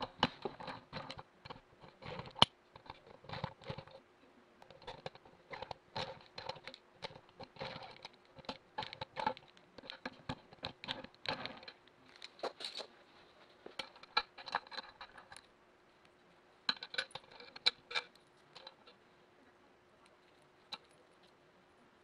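A socket ratchet clicking and metal clinking in quick irregular runs as the timing chest cover bolts are undone. The clicking stops for a moment about 15 seconds in, comes back briefly, then dies away apart from one click near the end.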